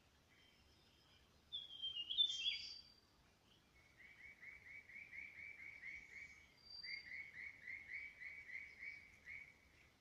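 Wild birds singing in dense vegetation: a burst of sharp chirps about a second and a half in, then two runs of quick repeated notes, about five a second, each lasting a couple of seconds, over faint thin high whistles.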